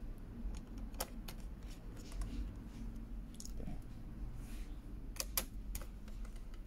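Scattered light clicks and taps of a small precision screwdriver working tiny screws into a laptop cooling fan, a few at a time, over a low steady hum.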